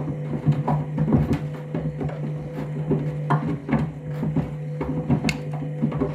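Candy front-loading washing machine in its main wash on the Trainers cycle: the drum turning with a steady motor hum while trainers inside knock and thud irregularly against the drum.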